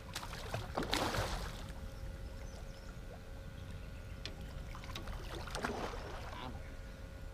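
Hooked catfish splashing at the water's surface beside a boat while being played on the rod, once about a second in and again around six seconds, over a steady low rumble.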